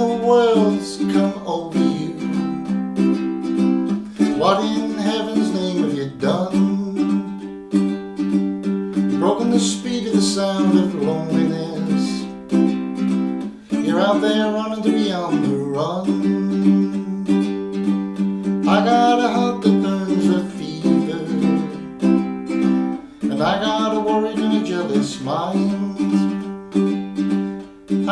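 Ukulele strummed steadily in chords, accompanying a voice singing a country song.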